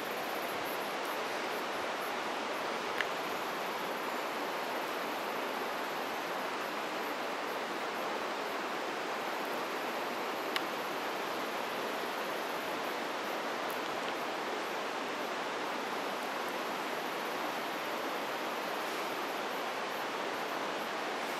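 Steady, even rush of running water, with a couple of faint ticks.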